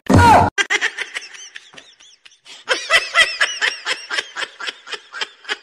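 A brief loud falling tone, then a person laughing in a long run of short, rapid bursts, about three or four a second, fading toward the end.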